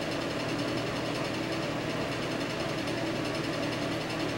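A steady machine hum with hiss, unchanging throughout.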